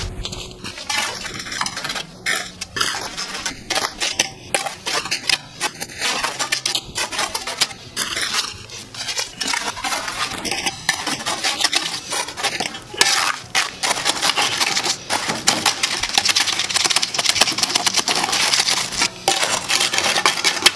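Steel shovel blade scraping and knocking against concrete while fresh concrete is packed tight into a floor trench so no voids are left behind. At first it is a run of separate scrapes and knocks; a little past the middle it turns into steadier scraping.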